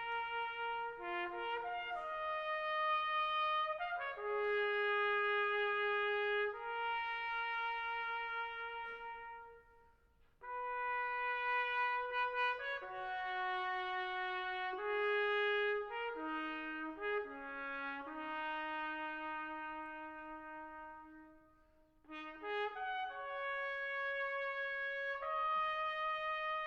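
Slow brass music led by trumpet, playing long held notes in three phrases with short pauses between them.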